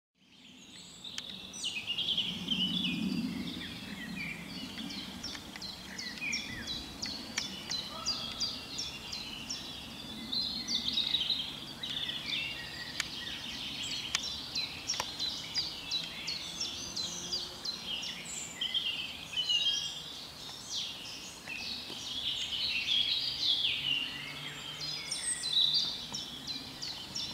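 Woodland birdsong: several songbirds chirping and trilling at once, in quick overlapping phrases, over a faint steady outdoor background. A brief low hum sits underneath about three seconds in.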